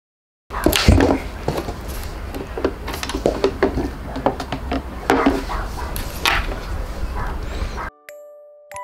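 Knocks, bumps and scrapes of a child handling a wooden music box on a table, over a low room rumble, with the loudest bump about a second in. Just before the end the sound cuts off sharply and a music box starts to play its tinkling tune.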